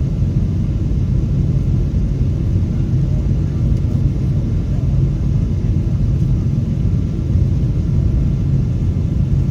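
Steady low rumble of a jet airliner's engines and airflow during takeoff, heard from inside the cabin.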